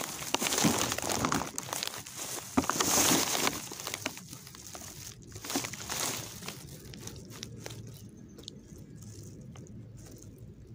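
Crinkling and crunching in irregular bursts for about six seconds, then only a few faint clicks.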